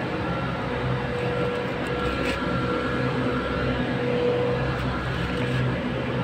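A steady mechanical drone with faint whining tones that swell and fade, from a machine or engine running.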